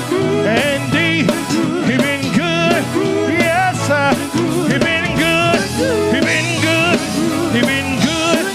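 Live gospel band music with a steady drum beat, playing on between sung lines of the song.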